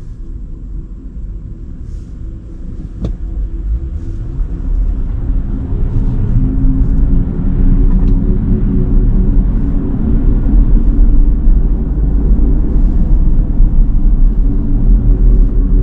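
Cadillac Lyriq electric SUV driving on wet roads: a low road and tyre rumble with a steady multi-tone hum, growing louder over the first several seconds as it picks up speed, and a single click about three seconds in.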